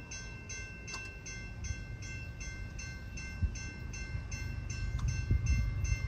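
Railroad grade-crossing warning bell ringing steadily, about two and a half strikes a second, the crossing signal active for an approaching train. Under it a low rumble builds, louder near the end.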